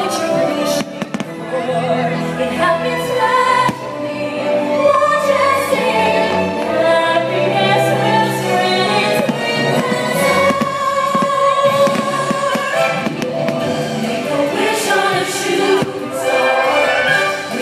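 Fireworks show soundtrack of orchestral music with a choir singing, played loud over the crowd area, with repeated firework bangs cutting through it.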